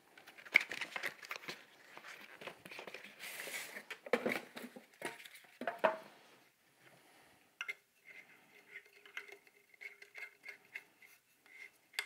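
Cardboard bulb box and styrofoam packing handled: rustling, scraping and sharp clicks as a compact fluorescent spiral bulb is pulled out. About eight seconds in it turns to quieter, squeaky scraping with light ticks as the bulb is screwed into the socket of a five-bulb lamp head.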